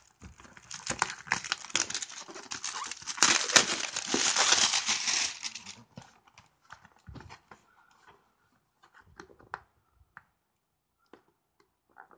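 Plastic shrink wrap being torn and peeled off a small cardboard box, a dense crinkling for about six seconds, loudest in the middle. After that, only faint scattered taps and rustles as the box is handled.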